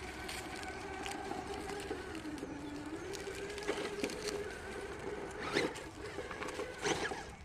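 Redcat Ascent Fusion RC rock crawler's electric motor and gear drivetrain whining, its pitch rising and falling as the throttle is worked, with clicks and knocks from the tires and chassis on rock, loudest in the second half.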